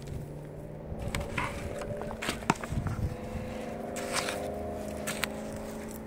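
Hand trowel scraping and digging through loose potting soil in a plastic pot, with scattered crunches and clicks as soil and potatoes are handled. A steady low hum runs behind.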